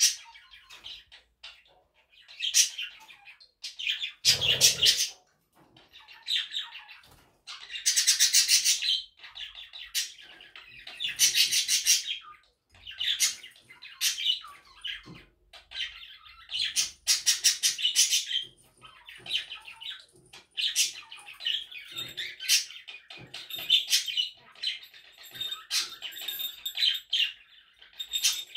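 Budgerigar chattering and chirping in repeated bursts of warble, each up to about a second and a half long, with short pauses between them.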